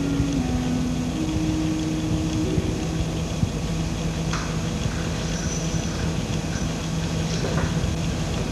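Steady hum and hiss of an old film soundtrack. The last held notes of background music end about two and a half seconds in, and a few faint knocks follow.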